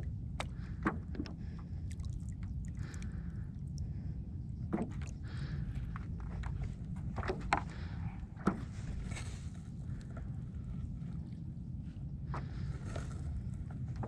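Small water sounds at the side of a small boat on calm sea: scattered drips, light splashes and clicks over a steady low rumble.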